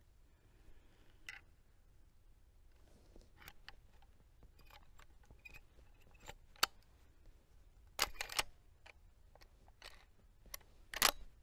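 Marlin 336 lever-action rifle being loaded: .30-30 cartridges pushed through the side loading gate into the tube magazine with a run of small metallic clicks, then louder metal clacks about 8 seconds in and again near the end as the lever is worked.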